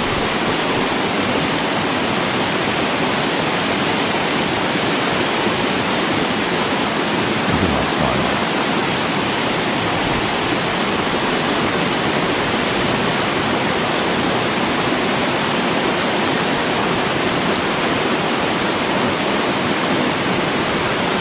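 Creek water rushing and splashing in a steady, even wash close to the microphone.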